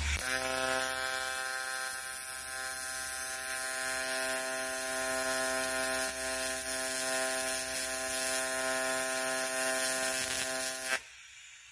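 AC TIG welding arc on aluminium, a steady electric buzz with a hiss over it as filler rod is fed into the weld pool. The arc cuts off suddenly near the end.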